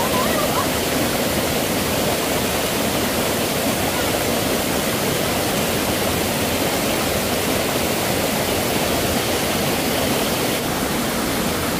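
Small stream cascading over a sloping rock slab: a steady, even rush of falling water.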